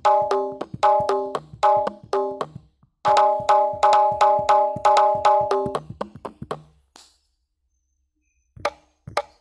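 Sampled kendang drum strokes from a phone drum app, played in a fast koplo pattern of sharp hits that ring at a definite pitch. The playing stops about two-thirds of the way in, then a few sparse hits come back near the end.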